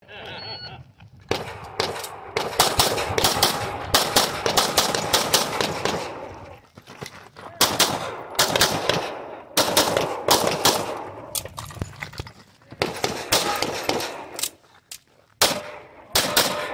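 Red-dot-sighted pistol fired in fast strings of shots, starting about a second in, with short pauses between the strings.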